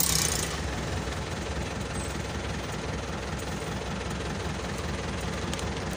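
Vehicle engine running steadily, a low rumble heard from inside the cab, with a brief hiss at the very start.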